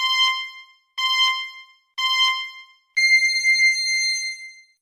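Electronic time-signal tone: three short beeps a second apart, then one long beep an octave higher that fades out.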